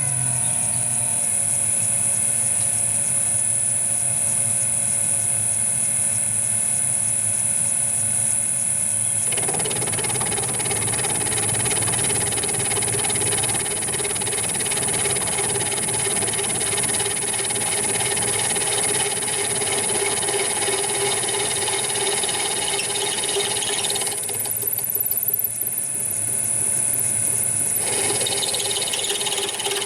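Metal lathe running steadily, with a rounded-off form tool cutting a shaping groove into 17 mm steel hex bar. A rough, hissing cutting sound comes in about nine seconds in, stops for a few seconds near the end, then starts again.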